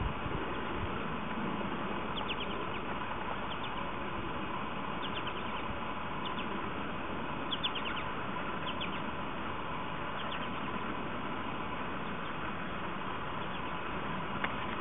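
Steady open-air hiss with scattered short, high bird chirps coming in small groups. There is a faint knock near the end.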